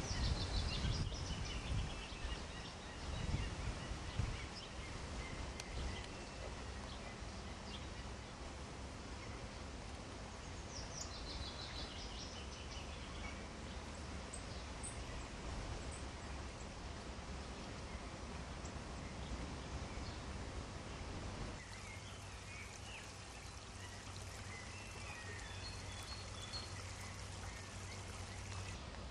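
Outdoor ambience with a small bird singing a short falling series of high notes twice, over a low rumble in the first few seconds. About two-thirds of the way through the background changes to a steady low hum with faint scattered chirps.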